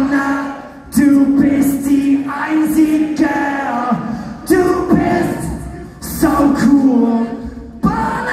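Live rock band with electric guitar, bass and drums playing a stop-start section under sung lines. Each phrase starts on a sharp band hit with a held vocal note, then dies away before the next, about every one and a half to two seconds.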